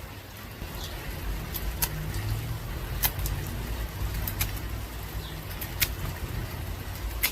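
Slipjoint pocketknife in use during a cutting test: a series of sharp snaps, roughly one every second and a half, over a low steady rumble.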